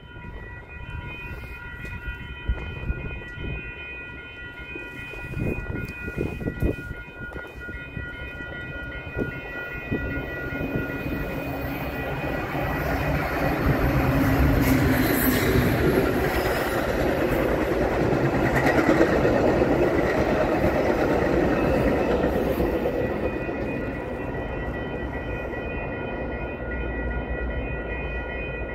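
Metra commuter train of bilevel passenger cars passing close by, wheels rumbling and clacking over the rails. It builds to its loudest around the middle and then eases off. A steady high ringing runs underneath throughout.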